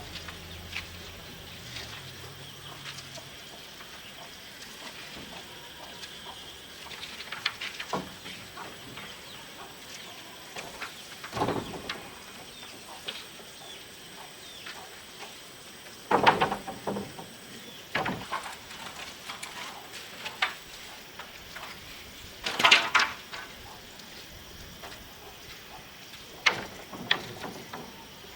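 A handful of irregular sharp knocks and rustles, the loudest about halfway through and again a few seconds later, over a steady faint hiss with a thin high tone that fades out after about two-thirds of the way.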